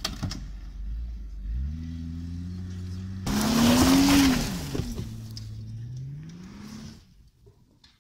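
A car engine is revving hard while the car slides across a dirt paddock. It comes in about a second and a half in, and a loud rush of engine and tyre noise follows a few seconds in, with the revs rising then falling. The revs climb again before the sound falls away to almost nothing near the end.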